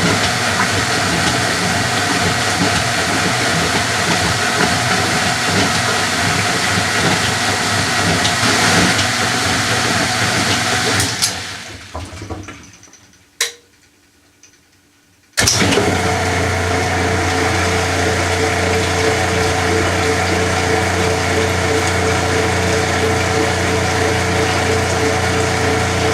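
Washing machine running with its cabinet off, the mechanism's steady mechanical noise and motor hum exposed. About eleven seconds in it winds down to near silence, with a single click, then starts again suddenly a few seconds later with a steadier hum.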